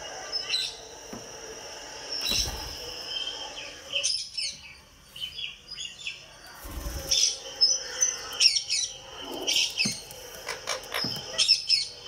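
Indian ringneck parakeet giving bursts of short, sharp chirps and squawks, a few at a time, busiest in the second half. There are also two brief low thumps.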